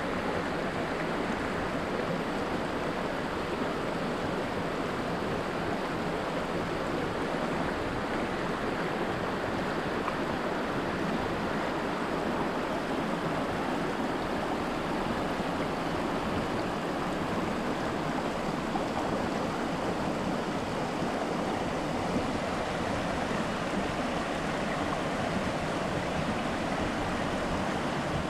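Shallow mountain freestone stream running over rocks in riffles: a steady rushing of water.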